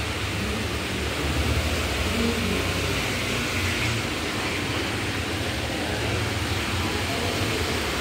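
Steady background noise with a low rumble.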